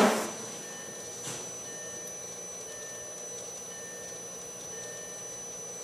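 A VW/Audi 1.8 turbo four-cylinder engine running steadily while a dashboard warning chime beeps about once a second: the low-oil-pressure warning, sounding because the oil pressure is not coming up. A short loud clatter comes right at the start.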